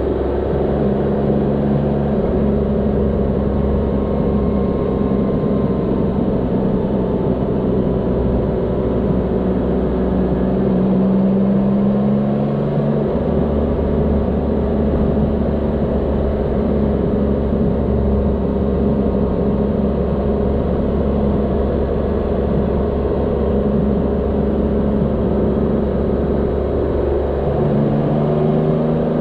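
Motorcycle engine running at road speed, heard from on board over a steady rush of wind. The engine note shifts a little after ten seconds and again near the end as the throttle changes.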